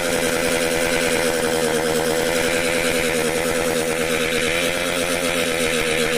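Small motorcycle engine held at steady high revs, a constant buzz whose pitch wavers slightly.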